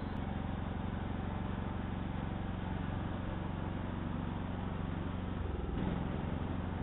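An engine running steadily with a fast, even pulse, its pitch shifting slightly about five and a half seconds in.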